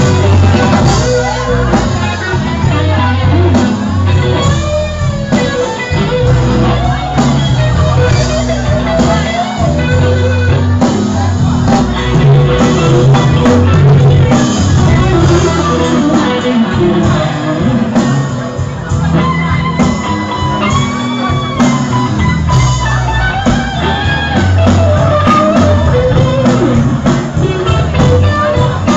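Live rock band playing: an electric guitar carries a lead line with bending, wavering notes over bass and drums.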